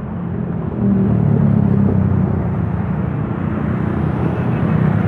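Street traffic passing: motorcycle and car engines running, getting louder about a second in and staying loud.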